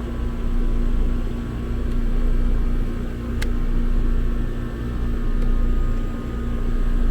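Trane XL20i outdoor unit running: its two-stage compressor gives a steady hum and the condenser fan a low whoosh that swells and eases every couple of seconds. One sharp click comes about three and a half seconds in. The compressor is started and running normally, no longer stuck at locked rotor now that the start capacitor relay is working.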